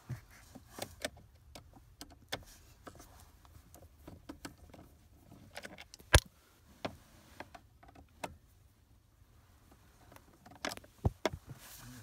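A screwdriver backing screws out of the 2002 Acura TL's plastic lower steering column cover: scattered small clicks and metal ticks, with one sharp click about six seconds in.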